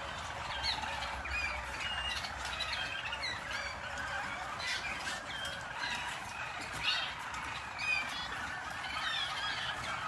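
Several Harz Roller (Harzer Edelroller) canaries singing at once: overlapping rolling and trilling song with short sweeping notes, running on without a break.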